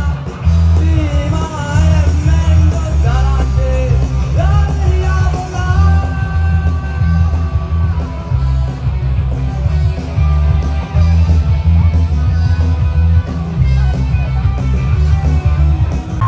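Loud music with a heavy, pulsing bass and a singing voice carrying the melody.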